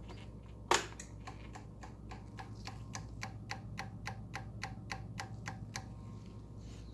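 2012 Honda Ruckus 50cc scooter engine turning over on its electric starter without firing: a sharp click as the starter engages, then light even ticks about four a second that stop after about five seconds. It is a no-start, with the engine cranking but not catching.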